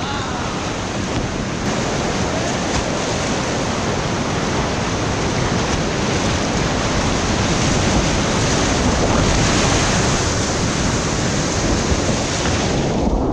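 Rushing whitewater of a river rapid, a steady loud noise of moving water heard close up on an action camera's microphone.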